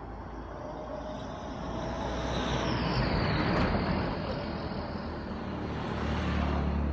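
Road traffic at night: a vehicle passing close, its engine and tyre noise swelling to a peak about three to four seconds in and falling away, then a deeper engine rumble building near the end as another vehicle comes by.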